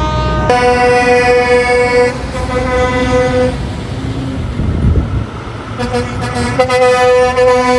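Truck air horns blowing long, steady blasts as a line of prime movers drives past, over engine and tyre rumble. One blast starts about half a second in and fades after about three seconds; another starts about six seconds in and runs on, with a heavier rumble of a passing truck just before it.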